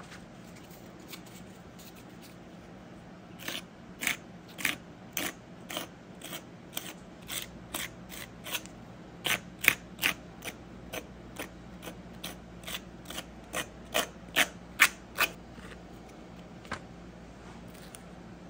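Short rasping strokes of sandpaper rubbed by hand over hardened body filler, about two strokes a second, starting a few seconds in and stopping near the end with one last stroke.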